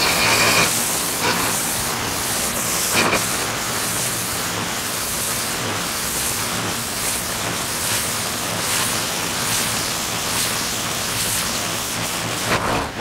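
High-pressure water jet from a pressure washer lance blasting grime off roof tiles: a steady loud hiss of spray, with a low hum underneath and a couple of brief louder surges near the start and about three seconds in.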